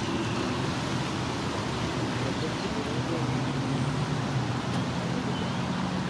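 Steady outdoor background noise, a low rumble with a hiss over it, of the kind made by distant road traffic.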